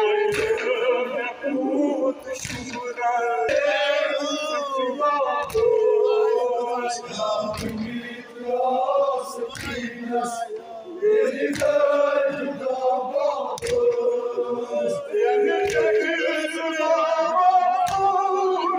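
A male reciter sings a Kashmiri noha (Muharram lament) into a microphone, with a crowd of men chanting along in unison. Sharp slaps of chest-beating (matam) fall in time with it, about one every one and a half to two seconds.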